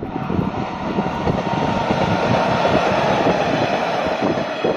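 Kiha 120 diesel railcar passing close by, its diesel engine running and its wheels rolling over the rails in a steady, loud rumble.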